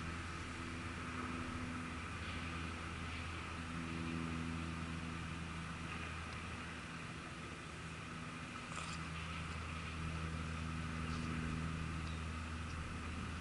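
Octocopter's electric motors running steadily: a low hum with a fainter higher whine above it, its several tones swelling and fading slightly against each other.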